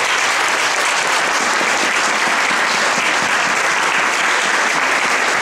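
Audience applauding steadily, a loud, dense clapping.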